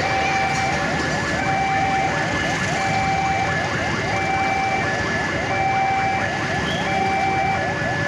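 Railway level-crossing warning alarm sounding, a repeating electronic tone pattern about every second and a half. Under it a steady noise of passenger coaches rolling through the crossing and of waiting street traffic.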